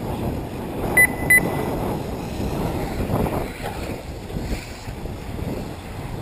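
Wind buffeting the microphone in a steady rumble, with two short high electronic beeps in quick succession about a second in.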